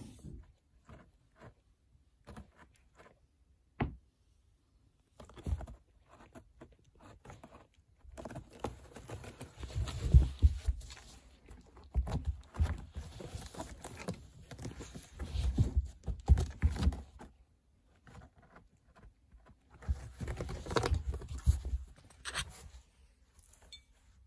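A cat scratching and rubbing against a corrugated cardboard scratcher, its frayed cardboard rustling and tearing in irregular bursts. Only scattered scrapes come at first; the scratching grows busy about eight seconds in and comes in bursts from then on.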